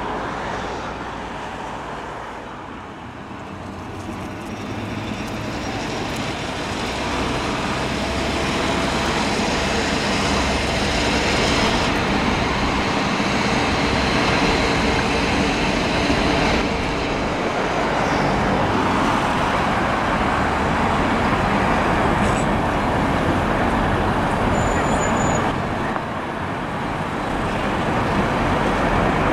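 Steady road traffic noise from cars and vans passing along a seafront road, growing louder through the middle and easing off near the end.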